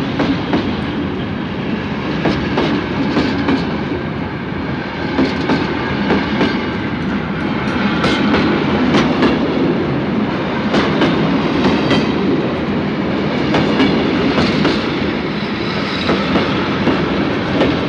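French local steam train rolling along the track as it departs, its wheels clicking sharply over the rail joints with light metallic squeaks.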